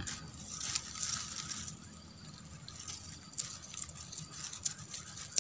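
Small knife scraping the scales off a tilapia, a run of irregular light scratches and clicks.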